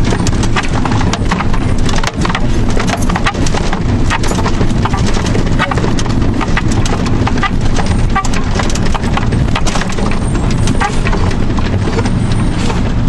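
Fire engine's diesel engine running as the truck drives slowly over a rough forest dirt track, with a steady low drone under a dense clatter of rattles and knocks from the cab and its fittings jolting over the bumps.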